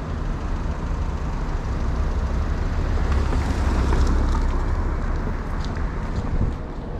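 Street traffic: a car passes by, growing louder to a peak about four seconds in and then fading, over a steady low rumble.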